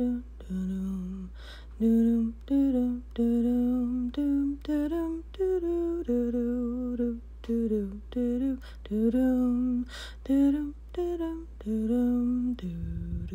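A woman humming a tune to herself, a string of short held notes rising and falling, ending on a long held note. A few brief clicks sound between the notes.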